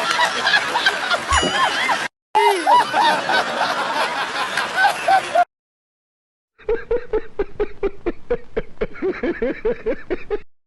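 Laughter sound effects played one after another: two clips of high, wavering laughing, a short silence, then a rapid chuckling laugh of short pulses, about five a second.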